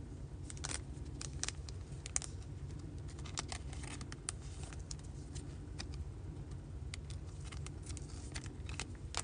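Faint handling of a glossy trading card and a thin plastic card sleeve: scattered small crinkles and sharp ticks as the card is turned and slid into the sleeve, over a steady low hum.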